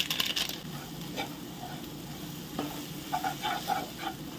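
Spice paste frying in oil in a non-stick kadai with freshly added Kashmiri chilli powder. It crackles and sizzles at the start, then a wooden spatula stirs and scrapes it across the pan in a few short strokes in the second half.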